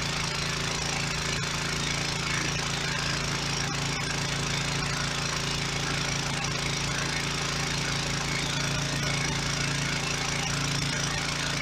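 Home-built pressure washer running steadily: a low drone under the even hiss of high-pressure water from a surface cleaner scrubbing a concrete sidewalk.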